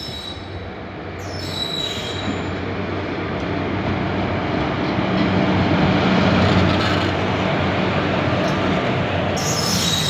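Electric locomotive hauling a passenger train past at close range: a steady low hum and rolling rumble that grow louder and are loudest as the locomotive passes about six seconds in, then the coaches rolling by.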